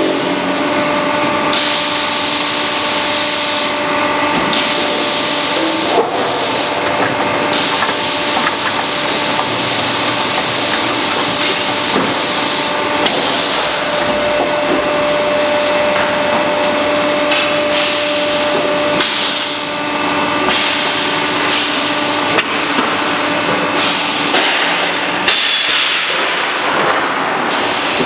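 Grinding-ball production line machinery running: loud, continuous machine noise with a steady whine and occasional sharp knocks.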